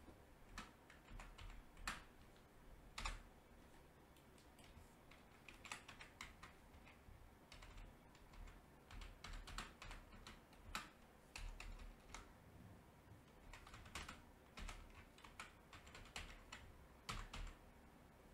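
Faint computer keyboard typing: irregular keystrokes in short runs with brief pauses between them.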